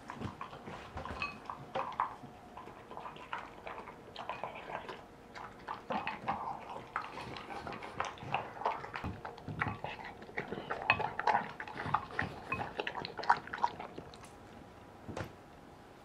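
French bulldog eating from a bowl: a quick, irregular run of crunching, chewing and clicks of food and muzzle against the bowl, dying away near the end.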